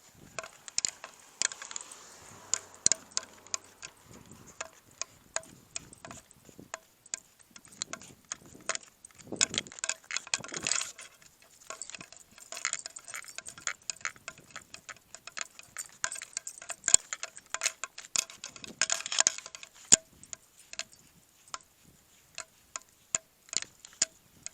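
Footsteps on a walk and light metallic clinks, a few a second at an uneven pace, with a louder scuffing rustle about ten seconds in and again near the end.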